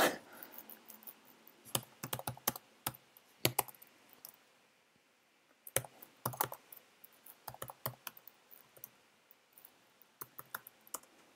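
Computer keyboard being typed on in irregular bursts of sharp keystrokes with short pauses between them, as a terminal command is entered.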